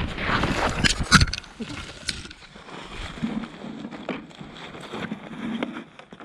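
A GoPro action camera knocked over onto the ice: scuffing and rustling on its microphone, with a sharp knock about a second in as it lands, then quieter scraping.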